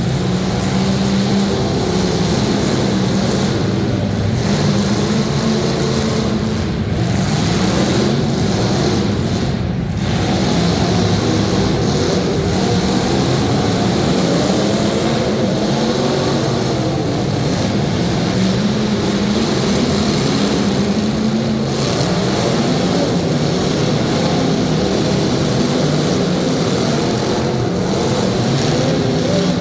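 Several demolition derby cars' engines running and revving together, their pitches rising and falling over one another without a break.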